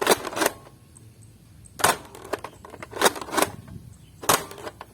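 Sharp plastic snaps and clacks from a toy foam-dart blaster being worked and fired, about six of them. Two come at once at the start, one follows about two seconds in, two around three seconds in, and one more near the end.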